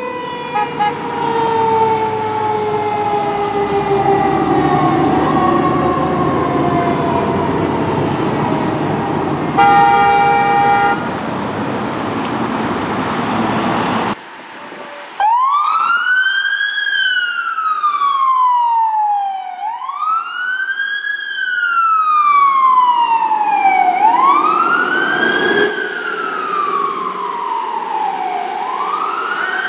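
Fire truck siren falling slowly in pitch over truck and road noise, with a short air-horn blast about ten seconds in. After an abrupt cut, a fire truck siren wails, rising quickly and falling slowly, about every four to five seconds.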